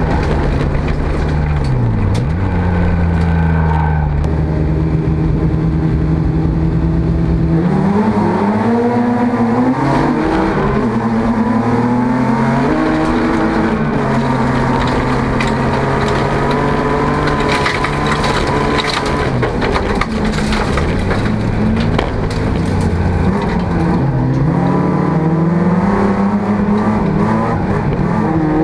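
Folk-race car engine heard from inside the cabin, revving up and dropping back over and over as the driver shifts and lifts through corners. Gravel and stones clatter against the car's body and underside, most busily about two-thirds of the way through.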